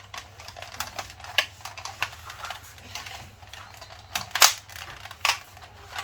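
Plastic clicks and knocks of a Nerf blaster being handled after a shot, irregular, with two louder clacks about four and a half and five seconds in.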